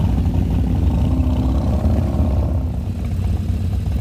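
Motorcycle engines running at low revs with a steady, deep, rapidly pulsing rumble.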